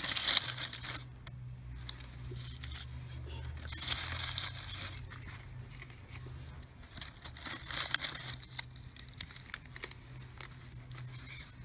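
Fingers pressing tulip bulbs into dry potting soil in a clay pot: scratchy rustling and crunching of soil and papery bulb skins in several bursts, with sharp little clicks, over a steady low hum.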